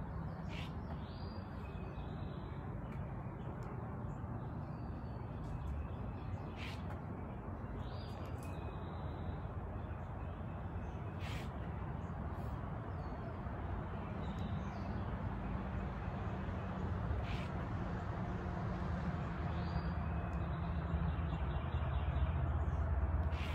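Outdoor background: a steady low hum and hiss, with occasional bird calls and a few faint clicks.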